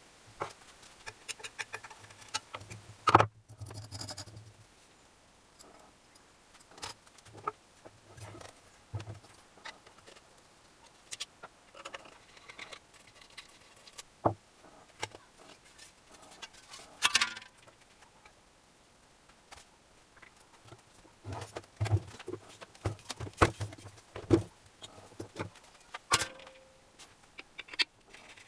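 Metal tools and engine parts clinking and knocking at irregular moments while an NSU Pretis 175 engine is taken apart. A low hum comes and goes.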